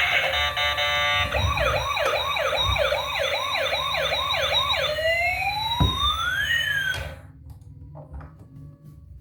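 Toy emergency vehicle's electronic siren sound effect: a short steady tone, then a fast rising wail repeating about twice a second, then a slower up-and-down wail, cutting off suddenly about seven seconds in. A knock sounds just before the cut-off, and faint clicks follow it.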